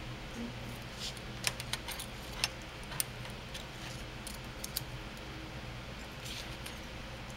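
Light metallic clicks and clinks, scattered and mostly in the first half, from the lock parts of a Browning M1919 machine gun and steel feeler gauge blades being handled as the gun is reset for a firing-pin timing check, over a faint steady hum.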